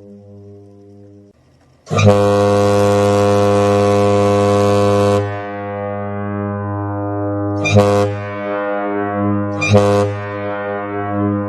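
Deep, foghorn-like horn blasts over a continuing low drone. A loud blast starts about two seconds in and holds for about three seconds, then two shorter, sharper blasts come near eight and ten seconds in while the low tone carries on.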